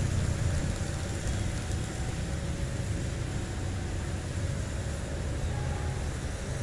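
Passenger train rumbling along the rails, the steady low rumble slowly fading as the train pulls away.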